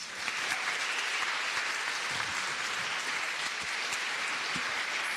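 Audience applauding steadily, a dense, even clapping at the end of a speech.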